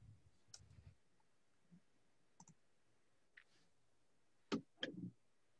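Near silence broken by a few faint clicks, with two sharper clicks close together near the end.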